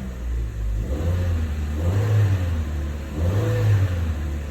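A 2013 Chevrolet Sonic's four-cylinder engine idling, its low hum swelling and easing about every second or so. The car has a misfire complaint with a flashing check-engine light, and the owner takes an occasional slight misfire blip as not unusual for these cars.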